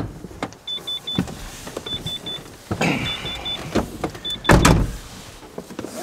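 Car's door-open warning chime beeping in quick groups of three, about once a second, over rustling and thumps as two people climb into the front seats. A car door shuts about four and a half seconds in, the loudest sound, and the chime stops.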